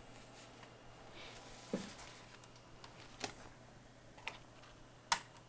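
A few short, sharp clicks and small knocks, four spread over the stretch with the sharpest near the end, over faint room hiss.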